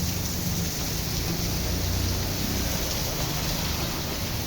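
Heavy rain pouring steadily, an even hiss of falling water with a low rumble underneath.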